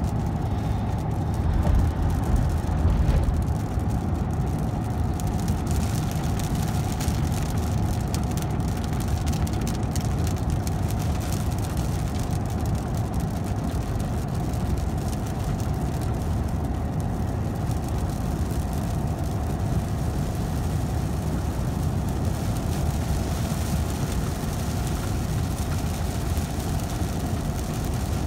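Truck cabin at highway speed: steady engine drone and road noise with a faint steady whine, and a brief louder low rumble swelling about two seconds in.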